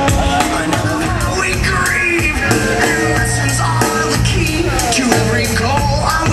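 Loud rock song with a singing voice over a steady drum beat.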